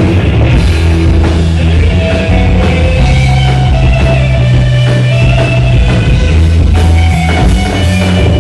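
Live rock band playing loudly, with electric guitar over a drum kit keeping a steady beat.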